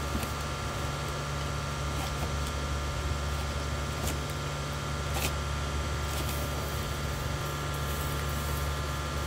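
Steady low mechanical hum with an even hiss over it, unchanging throughout, with a few faint clicks.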